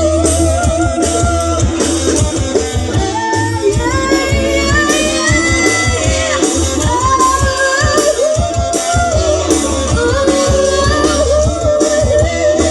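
Pop song: a singer's voice carrying a melody over a band with a steady beat.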